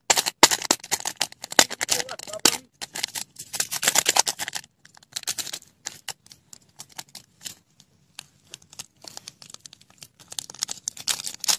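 Small plastic sachet being torn open and handled: a run of sharp, irregular crackles and crinkles, busiest in the first few seconds and thinning out later.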